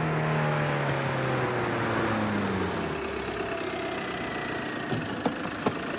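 A car driving, its engine note falling steadily in pitch over about three seconds, with road noise underneath. A few sharp clicks come near the end.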